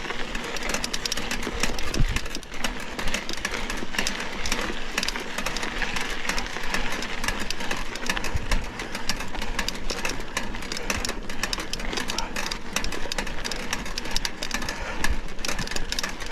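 Mountain bike ridden over a rough dirt trail, heard from an onboard camera: continuous irregular rattling and clatter of the bike and camera mount jolting over bumps, over a steady rush of wind and tyre noise.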